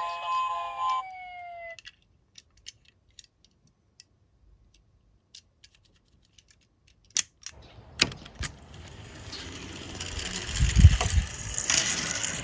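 A toy police car's electronic siren sounds for about a second, then falls in pitch as it cuts off. Small clicks follow as a toy is handled. A few seconds later a toy minicar rolls down a slope, rattling and rumbling louder as it goes, with one heavy knock partway through the roll.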